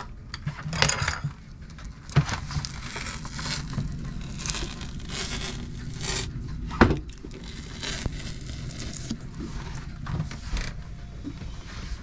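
Anti-slip grip tape being worked by hand on wooden boat stairs: a run of short scraping and peeling noises, with two sharp knocks, about two seconds in and about seven seconds in.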